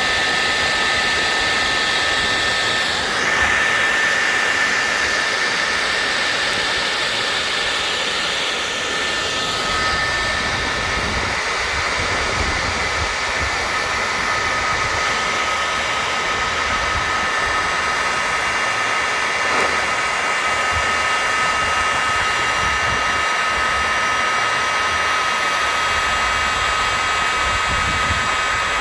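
Bosch hot air gun running steadily: its fan blows with a whine whose tone shifts a couple of times, as it is used to burn weeds out from between paving stones.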